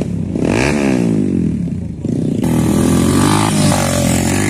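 Off-road dirt bike engines revving: first a bike revving up and down, then, after a sudden cut, a louder dirt bike close by running at steady high revs.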